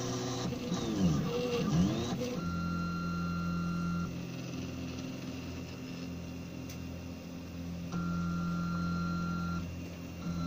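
3D printer's stepper motors whining as the print head moves, the pitch sweeping up and down in short moves during the first two seconds, then holding steady tones during long straight passes.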